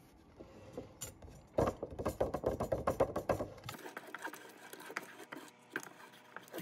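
Fingers tapping quickly on a MEINL 10-inch pandeiro's overtuned synthetic head, about seven taps a second, with the small brass jingles rattling. The taps start about a second and a half in, are strongest for about two seconds, then go on more lightly.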